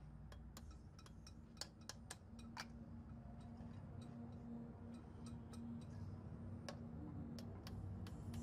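Faint, scattered sharp clicks and ticks, more than a dozen at irregular intervals, over a low steady hum that comes in about two seconds in.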